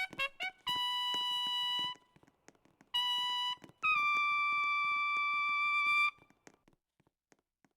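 Trumpet playing a few quick short notes, then three high held notes, the last slightly higher in pitch and the longest, stopping about six seconds in.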